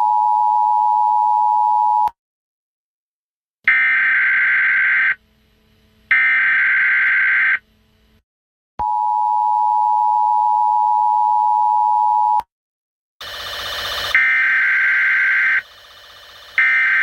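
Emergency Alert System tones: the steady two-tone attention signal, then two short screeching digital data bursts, then the two-tone attention signal again for about three and a half seconds, and two more data bursts near the end.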